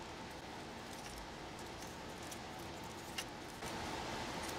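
Faint rustling and small clicks of hands handling a cable and adhesive copper foil over a steady hiss, with one sharper click about three seconds in.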